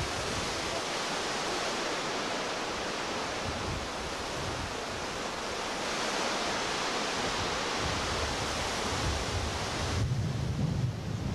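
Whitewater rapids rushing steadily in a broad, even hiss. Near the end the sound turns duller, and a low rumble comes up.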